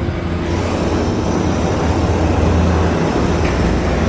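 Wind buffeting the microphone: a loud, steady rumble and hiss that builds over the first second and then holds.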